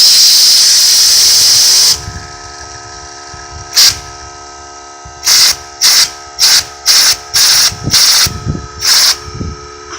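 Compressed air hissing loudly against fidget spinners to spin them up: one long blast of about two seconds, then a single short blast, then a run of eight short blasts about half a second apart.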